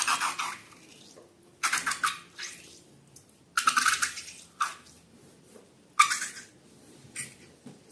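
Wet, sticky slime being squished and pressed by hand, in about six short bursts of crackly squelching clicks a second or so apart.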